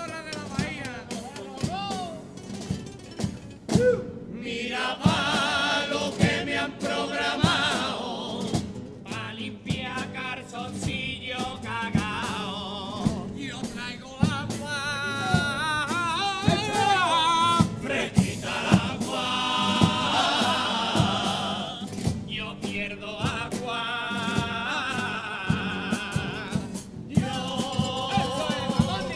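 A chirigota group singing together in a Cádiz carnival piece, accompanied by guitars and a drum keeping the beat. The voices come in fully about five seconds in and sing in phrases with short breaks.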